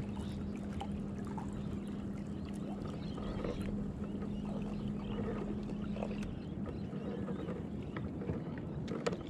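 Kayak moving across the water, with a steady low hum that stops about six seconds in.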